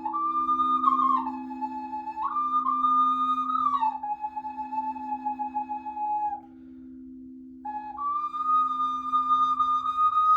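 Slow meditative flute melody of long held notes that step up and down, pausing briefly past the middle, over a steady low drone.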